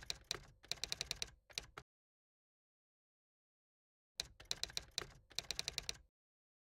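Two short runs of rapid, sharp clicks, about eight to ten a second, with dead silence between them.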